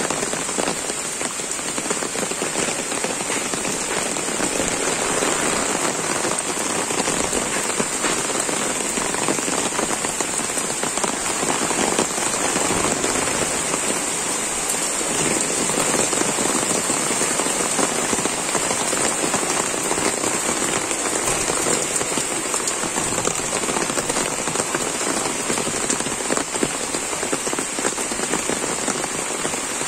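Rain falling steadily, a dense, even hiss of drops landing on wet ground and surfaces.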